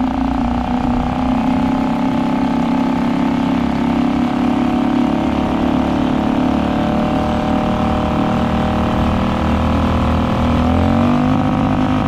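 Suzuki 2.5 hp single-cylinder four-stroke outboard motor running under throttle, its pitch creeping slowly up. Near the end it revs up sharply as the propeller breaks loose from its worn, spun rubber hub and slips.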